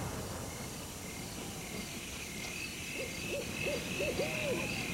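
An owl hooting: a quick run of short hoots about three seconds in, over a faint, wavering high trill, as a night-time sound effect.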